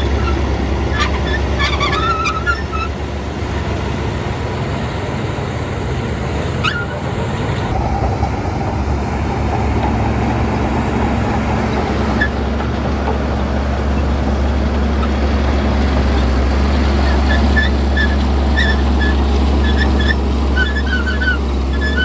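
Heavy diesel engine of earthmoving machinery running steadily, with short high-pitched chirps near the end.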